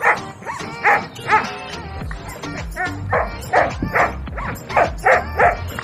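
A large dog barking in short barks, about nine in all: three in the first second and a half, then a quicker run of about six from around three seconds in. Background music plays underneath.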